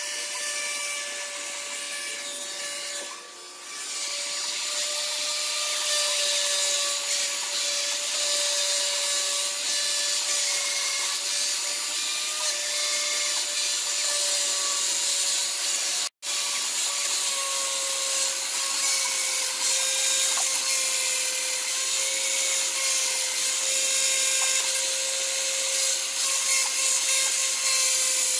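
Electric power-tool motor running steadily at a constant pitch with a strong hiss, likely cutting or rubbing on wood. The sound drops out abruptly for an instant about sixteen seconds in.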